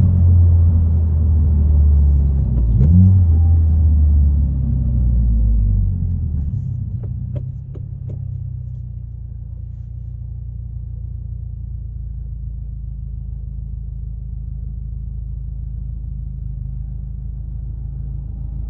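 2022 Subaru WRX's turbocharged 2.4-litre flat-four running through an ETS resonated cat-back exhaust, heard from inside the cabin. A loud low drone carries two quick pitch changes at gear shifts in the first few seconds. From about six seconds in the car eases off and the exhaust settles into a quieter, steady low rumble.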